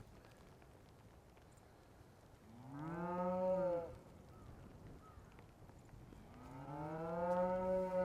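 A cow mooing twice. Each long call rises in pitch and then holds: the first lasts about a second and a half, and the second, starting about six seconds in, lasts about two seconds.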